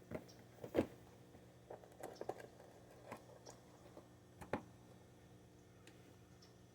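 Cardboard box and packaging being handled and opened: a few soft knocks and scrapes with short crinkly rustles, the loudest knock a little under a second in and another a little after four seconds.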